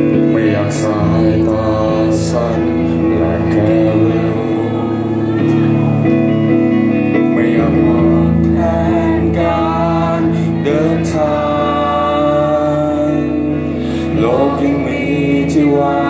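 Live band performing a slow song: a male singer sings over guitar and sustained bass notes, with the vocal lines coming and going over steady accompaniment.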